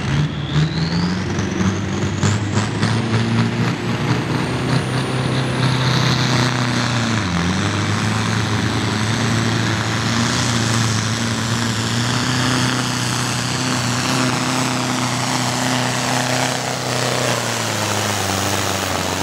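Ford 7000 tractor's turbocharged diesel engine at full throttle under load, pulling a sled. A high turbo whine climbs steeply over the first few seconds, and the engine note dips briefly about seven seconds in before holding steady again.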